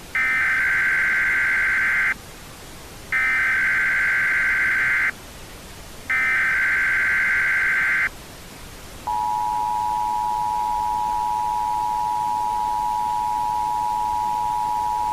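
Emergency Alert System SAME header: three bursts of digital data tones, each about two seconds long with a second between them. About nine seconds in, the steady two-tone EAS attention signal begins over a constant background hiss. Header and attention tone are the signal that an alert message is about to be read.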